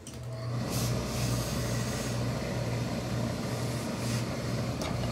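Industrial gravity-feed steam iron shooting steam while pressing wool suit trousers: a steady hiss over a low electric hum that starts suddenly.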